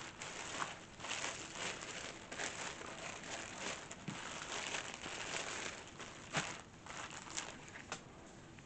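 A bag being opened and rummaged through by hand, a continuous crinkling rustle with short sharp crackles, easing off near the end.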